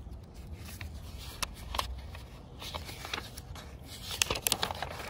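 Pages of a picture book being handled and turned, with crackly paper rustles and clicks that grow busier about four seconds in, over a steady low rumble.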